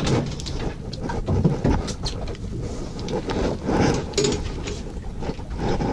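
Wind buffeting the microphone as a steady rumble on an open boat, with scattered small clicks and knocks of gear being handled.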